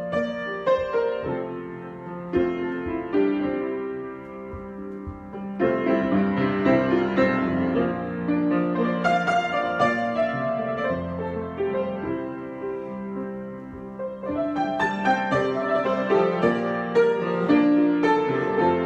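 Solo piano improvisation: chords and melody played freely, falling to quieter passages twice and swelling back louder, about six seconds in and again near the end.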